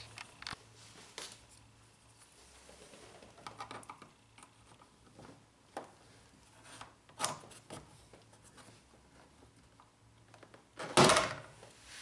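Screwdriver working a clipped-in plastic trim piece on a Honda Civic's rear door panel: scattered small clicks, scrapes and rubs of plastic. About eleven seconds in comes a single louder clack as the piece pops free.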